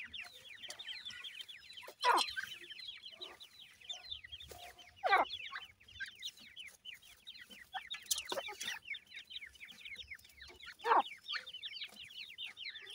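Grey francolin chicks calling without pause: a rapid stream of high, downward-slurred cheeps. Louder, longer calls slide down in pitch about two, five, eight and eleven seconds in.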